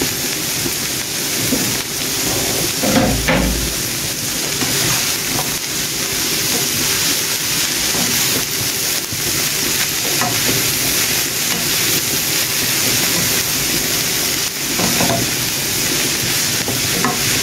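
Shredded cabbage and bell peppers sizzling in a frying pan with a steady, high hiss, rustling as they are tossed by hand. There are a couple of soft knocks about three seconds in and again near the end.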